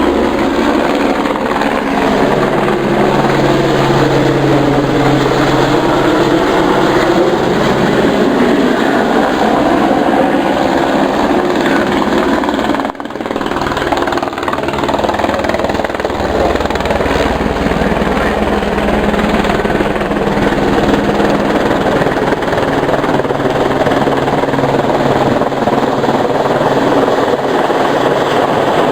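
Helibras HB350B Esquilo helicopter flying low overhead: loud, steady rotor and turbine noise whose pitch sways slowly as it passes, with a brief dip about halfway through.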